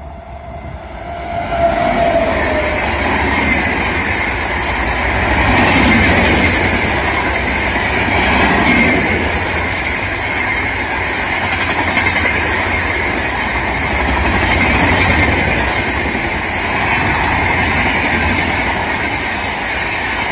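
Express passenger train running past at speed. A short tone dips slightly in pitch about a second in as the locomotive comes by. Then the coaches' wheels on the rails give a steady rush and rumble that swells and eases every few seconds.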